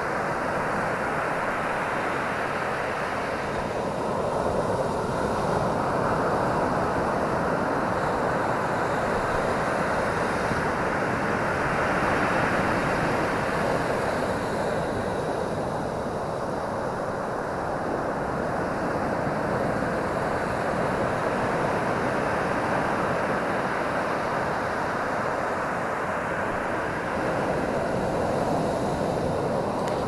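Ocean surf breaking on a sandy beach: a steady wash of white water that swells and eases every several seconds as each set of waves comes in.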